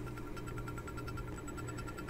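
Quiet steady background hum with a faint, fast, even ticking; no hammer blows on the anvil are heard.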